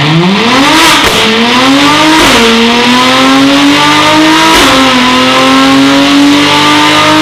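Mercedes-AMG C43's 3.0-litre twin-turbo V6 breathing through an Fi valved exhaust, pulling at full throttle on a chassis dyno. The engine note climbs, drops back at three upshifts about one, two and a half, and four and a half seconds in, and rises more slowly in each higher gear.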